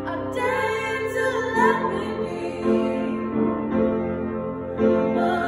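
Female voice singing a slow pop ballad with vibrato, accompanied by an upright piano.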